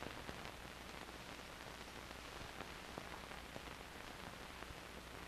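Faint steady hiss and low hum from a worn 16mm film soundtrack, with scattered small clicks and pops.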